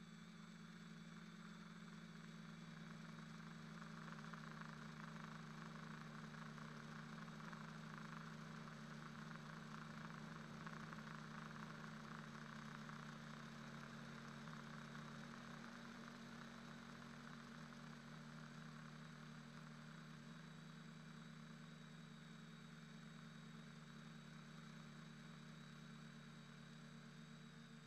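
Faint, steady drone of a quadcopter's electric motors and propellers in flight, picked up by the camera on the craft, with a hiss that swells for several seconds after the start and then eases off.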